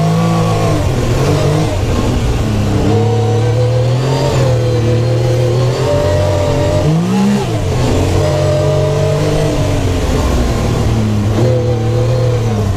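Supercharged Yamaha YXZ1000R side-by-side's three-cylinder engine heard from the cockpit, its revs rising and falling several times as it is driven, with a sharp dip and quick climb in revs about seven seconds in.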